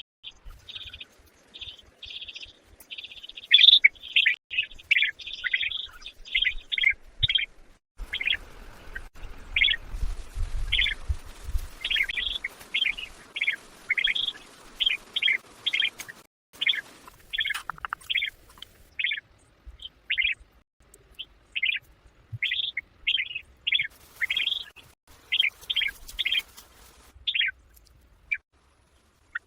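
Bird chirping: a long run of short, high chirps, several a second, with a low rumble underneath for a few seconds near the middle.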